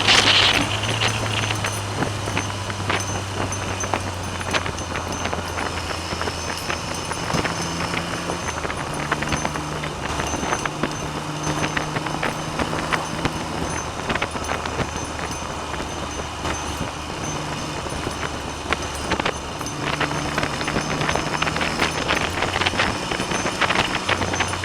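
Triumph Trident three-cylinder motorcycle engine running on the road, its note stepping up and down several times with throttle and gear changes, under heavy wind noise on the bike-mounted camera.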